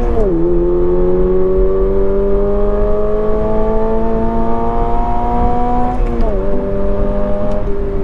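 Toyota GR86 accelerating through the gears, heard in the cabin: the 2.4-litre boxer engine's note is augmented with synthesized engine sound from the Active Sound Controller speaker, so most of what is heard is the fake engine noise. The pitch climbs slowly and drops at an upshift just after the start and again about six seconds in, then holds lower near the end.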